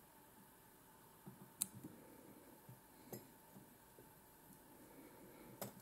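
Three faint, sharp clicks of small fly-tying scissors snipping off excess ostrich herl at the fly's head, the first the loudest.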